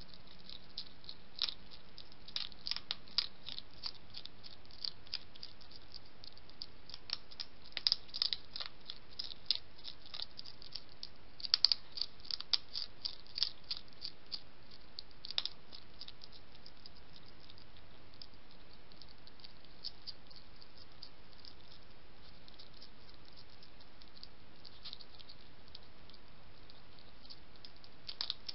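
European hedgehog eating dry kitten biscuits: irregular sharp crunches and clicks, thick and quick through the first half, sparse for a long stretch after that, then a few more near the end. A steady background hiss runs under them.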